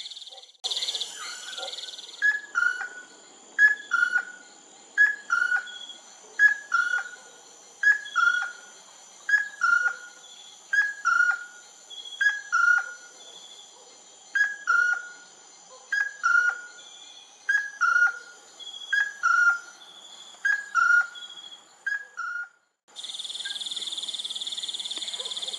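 A forest bird repeating a short two-note whistle, a higher note dropping to a lower one, about once every second and a half, over a steady high buzz of insects. A louder insect hiss fills the opening seconds and comes back near the end.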